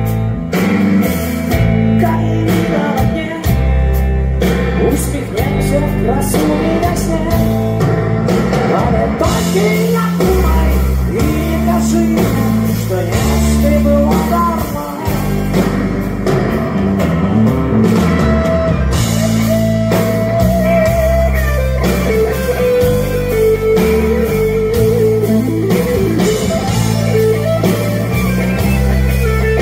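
Live rock band playing loud: electric guitars through Marshall amplifiers over bass and drum kit, with a held melody line in the second half.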